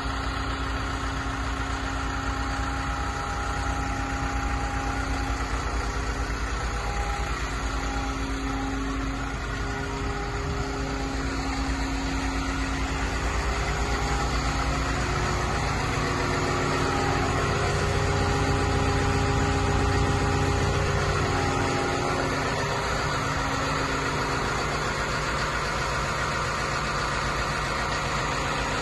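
Liebherr A 920 wheeled excavator's diesel engine idling steadily, a little louder about two-thirds of the way through.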